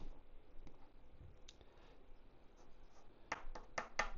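Light taps and clicks of small metal folding-knife parts being handled as the knife is taken apart, with a quick run of sharper clicks near the end.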